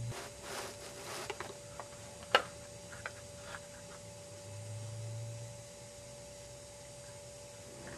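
Light rustling and clicking as a Lego model garbage truck is moved against crumpled paper and cardboard trash, with one sharp click a little over two seconds in and a few lighter clicks after it. A low hum comes in about halfway through.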